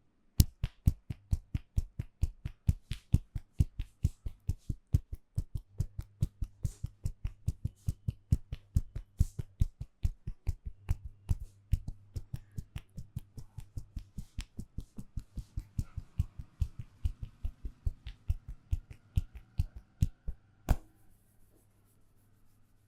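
Rapid, even hand strikes of a percussive Indian head massage, about four a second, going on for some twenty seconds before stopping near the end.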